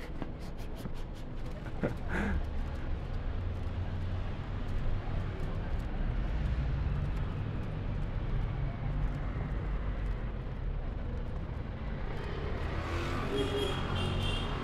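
Road traffic on a city avenue: a steady low rumble of passing cars.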